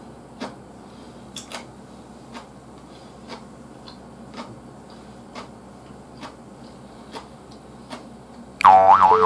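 A clock ticking faintly, about once a second, over quiet room hum. Near the end a loud, bright jingle with bouncing, gliding tones cuts in.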